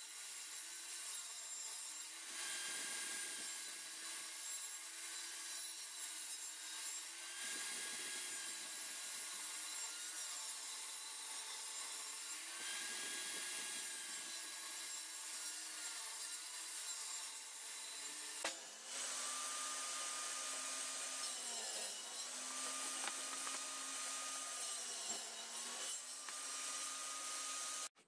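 Table saw running and ripping a softwood board lengthwise: a steady motor whine with the hiss of the blade cutting wood, the whine dipping in pitch several times. About two-thirds of the way through there is a sharp click and the whine carries on at a lower pitch.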